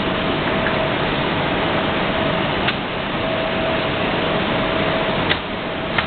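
Homag double-end profiling machine with sanding units running steadily, a constant mechanical noise with a faint steady tone in it. Three sharp clicks sound over it, about two and a half seconds in and twice near the end.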